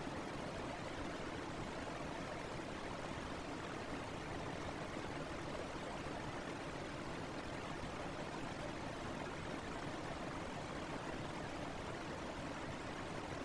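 Electric fan noise: a steady, unchanging rushing hiss.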